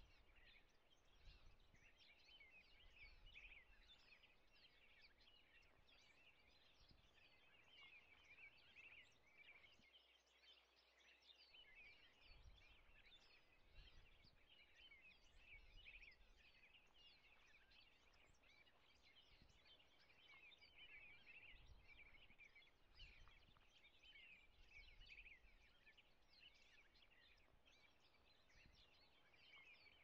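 Faint, continuous twittering of small songbirds: many short overlapping chirps with no pause. An uneven faint low rumble comes and goes underneath.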